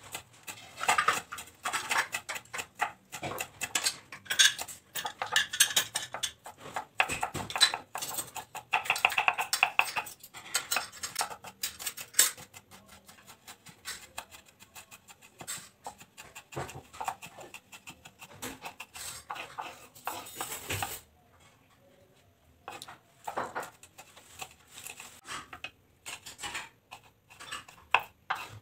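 Kitchen knife chopping shallots and garlic on a wooden cutting board: rapid, irregular knocks of the blade against the wood. The strikes stop briefly about two-thirds of the way through, then resume more sparsely as chili is sliced.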